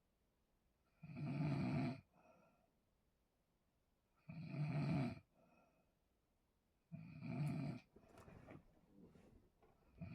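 A person snoring loudly: three heavy, buzzing snores, each about a second long and roughly three seconds apart, with softer breaths between them and a few faint clicks after the third.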